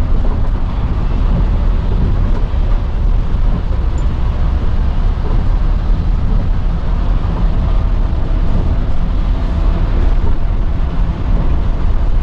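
Passenger coach running at highway speed on a wet road, heard from the driver's cab: a steady low rumble of engine and tyres with road hiss over it.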